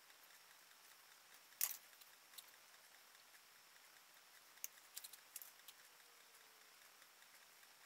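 Scissors snipping through a thin plastic card. One sharp snip comes about one and a half seconds in, and a quick run of smaller snips and clicks about five seconds in, with near quiet between.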